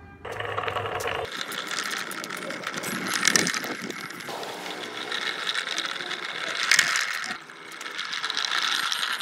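Small electric motor and gears of a self-driving wooden model car whirring at a steady whine as its wheels roll over rough concrete, with a couple of sharp clicks about three and seven seconds in.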